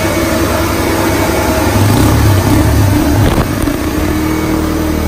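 Yamaha TT-R 230's single-cylinder four-stroke engine running steadily on a chassis dynamometer, with its rear wheel on the dyno roller.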